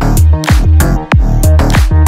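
Bass-boosted electro house music with a steady beat and heavy sub-bass, its deep bass notes sliding down in pitch.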